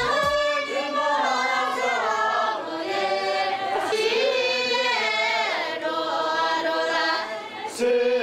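A group of women singing a Tibetan welcome song together, unaccompanied, with their voices sliding in pitch. Near the end, men's chanting takes over.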